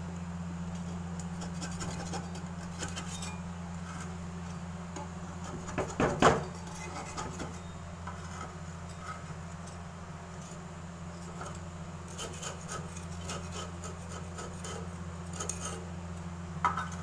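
A metal utensil scraping and knocking against a clay pan while rice cakes are lifted out, with a cluster of sharper knocks about six seconds in and another near the end, over a steady low hum.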